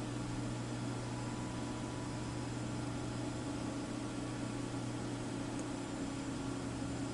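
Steady low electrical hum over a faint even hiss, unchanging throughout.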